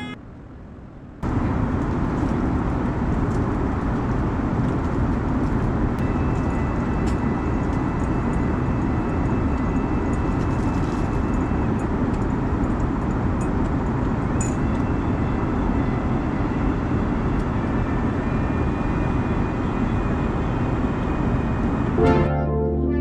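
Airbus A340 cabin noise in flight: a steady, even rush of engine and airflow noise, strongest in the low range, with a faint high tone over it.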